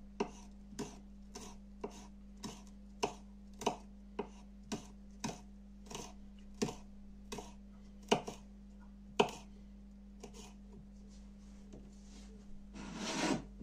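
Kitchen knife chopping a hot chili pepper on a wooden cutting board: the blade knocks sharply on the board about twice a second for roughly nine seconds, then only now and then. Near the end comes a short scraping sound.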